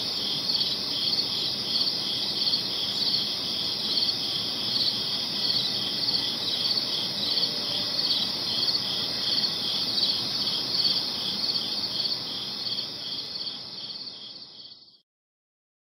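Crickets singing at night in a steady, rhythmically pulsing chorus over a faint background hiss. It fades out near the end and stops.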